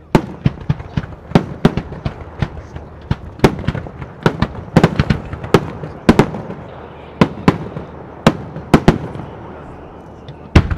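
Italian-style aerial firework shells bursting in quick succession: a string of sharp bangs at uneven spacing, about two or three a second, over a steady rumble. The bangs thin out for a moment before two loud ones near the end.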